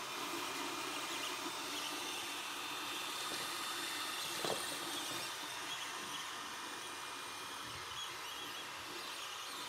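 Creality Ender 3 Pro 3D printer running mid-print: a steady hiss from its cooling fans with faint steady motor tones. One soft tap about four and a half seconds in.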